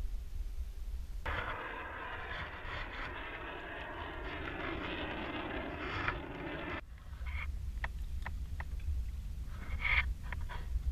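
Low wind rumble on the microphone on open water. A steady rushing noise is cut in sharply about a second in and stops sharply near seven seconds, followed by scattered light clicks and knocks as a fish is handled in the kayak.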